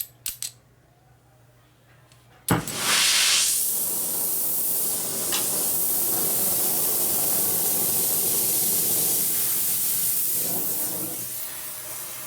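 A few small clicks, then about 2.5 s in a snap as a handheld gas torch lights, followed by the torch flame's steady loud hiss, easing slightly near the end. The flame is heating a stuck bolt head to free it.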